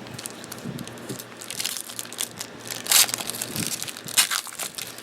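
Cellophane wrapper of a trading-card pack crinkling and tearing as the pack is opened, with a run of sharp crackles, the loudest about three seconds in and again a second later.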